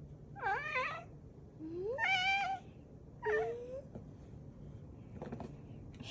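Domestic cat meowing three times in short, high calls, the middle one longest and rising at its start. The calls sound like a chick peeping.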